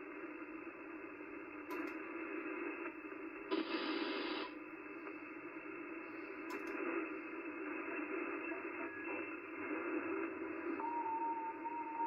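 Amateur radio transceiver's speaker giving steady band hiss as the tuning knob is turned across the band, with no station coming through. About four seconds in, the hiss briefly gets louder and brighter, and near the end a steady whistle tone of a carrier comes in.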